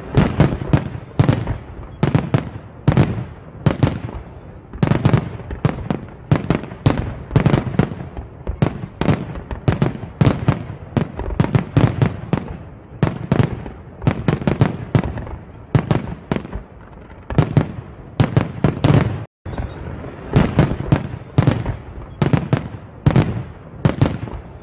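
Aerial fireworks display: shells bursting in a rapid run of bangs, several a second, with a momentary break about three-quarters of the way through.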